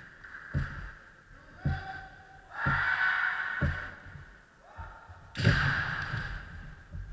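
Kendo fencers' long kiai shouts, several overlapping, over thuds of feet stamping on the wooden floor. The loudest stamp and shout come about five and a half seconds in.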